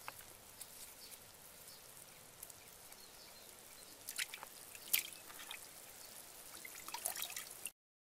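Drips and small splashes of liquid falling into a pot of simmering soup, heard as scattered sharp ticks over a faint hiss, busiest about four to five seconds in and again near the end. The sound cuts off abruptly just before the end.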